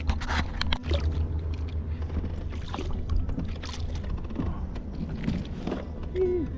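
Water splashing and lapping around a kayak, in irregular short splashes over a steady low rumble.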